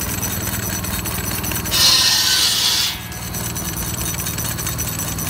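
Belt-driven buzz saw powered by a scale-model Case steam traction engine, running with a steady fast rhythmic beat. About two seconds in, the blade cuts through a piece of wood with a loud hiss lasting about a second, then drops back to running free.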